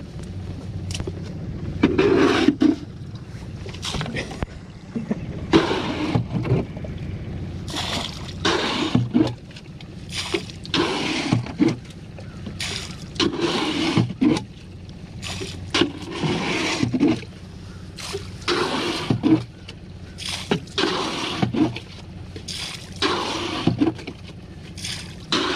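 Water being bailed by hand from a boat's floor with a plastic scoop: repeated scrapes and sloshes of water, roughly one every second or so.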